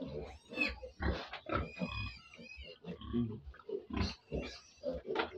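Pigs, a sow and her piglets, grunting in short repeated calls, about two a second, with a higher, wavering squeal about one and a half seconds in.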